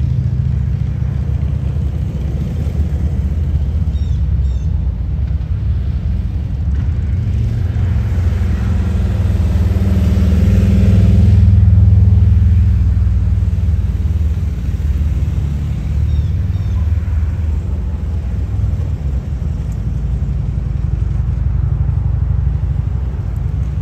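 Motorcade vehicles driving past: a steady low rumble of engines and tyres that swells to its loudest as one vehicle passes close about halfway through, then eases off.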